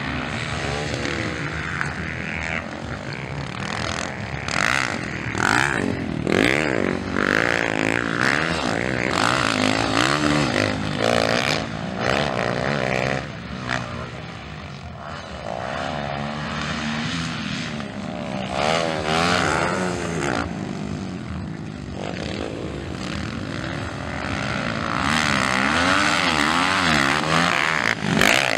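Several motocross dirt bike engines racing on track, revving up and easing off over and over, with several bikes overlapping.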